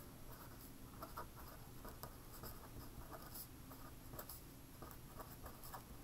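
A pen writing by hand on paper: faint, irregular scratches from the pen strokes.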